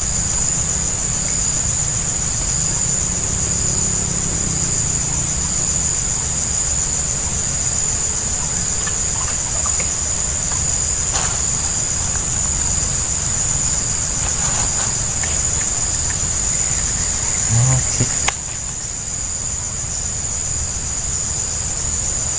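Insects droning steadily at a high pitch, with a fine rapid pulse. Underneath is a low rumble, and a few faint clicks come through.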